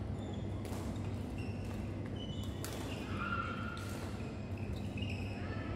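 Badminton rally: several sharp racket hits on a shuttlecock and short, high sneaker squeaks on the wooden court floor, over the steady hum of a large sports hall.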